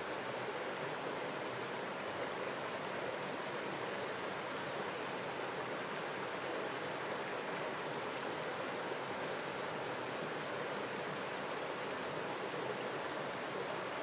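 Stream water running steadily, an even, unbroken rush of flowing water.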